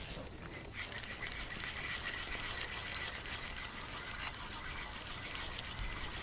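Spinning reel being cranked steadily while a hooked fish is reeled in on a float rod. It gives a faint steady whine with light ticking over open-air background noise.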